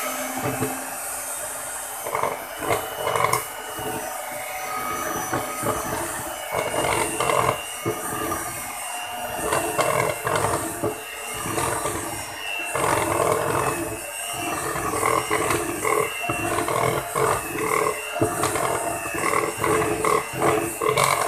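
Electric hand mixer running at low speed, its beaters churning thick cake batter in a plastic bowl to mix in freshly added flour. The motor sound rises and falls unevenly as the beaters move through the batter.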